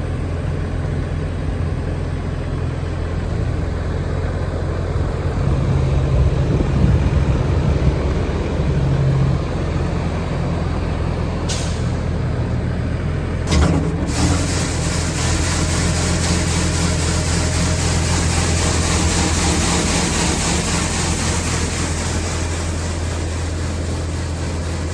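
The diesel engine of a 2014 Bobcat T650 skid steer running steadily, its pitch rising and falling briefly about a third of the way in. A short hiss comes a little before halfway, then a sharp bump just past halfway, after which a steady hiss joins the engine.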